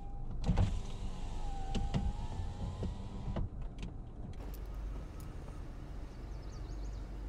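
A car's electric window motor running for about three seconds, a steady whine that dips slightly in pitch and cuts off with a click. After that comes a steady outdoor background noise.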